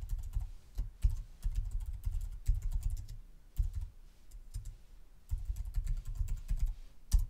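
Computer keyboard typing in quick runs of keystrokes as an email address and password are entered, with a pause about four seconds in and a sharper click near the end.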